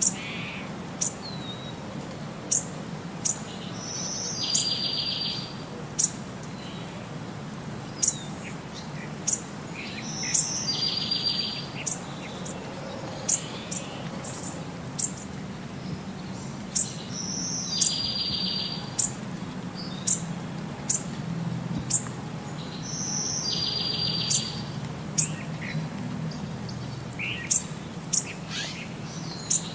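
Birdsong ambience, looped: sharp high chirps about once a second, and every six to seven seconds the same call ending in a short rasping trill, over a low steady hum.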